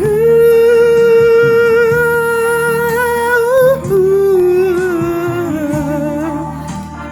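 A singer's voice holds a long high note for nearly four seconds, then drops to a lower note with vibrato, over a guitar and bass accompaniment.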